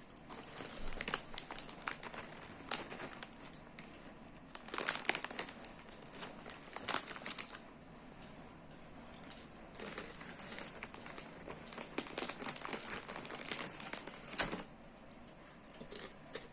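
Crinkling, crackling rustles that come in irregular bursts, with quieter gaps between them.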